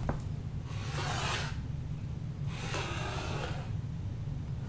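A pen drawing across pine boards: two long scratchy strokes of about a second each, marking a triangle across the boards to keep them in order. A short click at the start and a steady low hum underneath.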